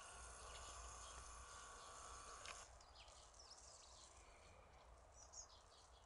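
Near silence over an open snowy field: a faint steady whine cuts off abruptly about two and a half seconds in, followed by a few faint, high small-bird chirps.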